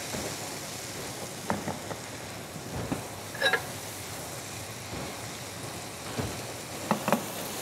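Oil sizzling in a nonstick frying pan as it is stirred with a silicone spatula, a steady hiss with a few light scrapes of the spatula.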